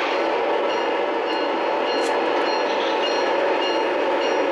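Lionel Polar Express Acela O gauge model train running at speed past the camera, its wheels giving a steady rolling rumble on the track with a faint thin high whine over it.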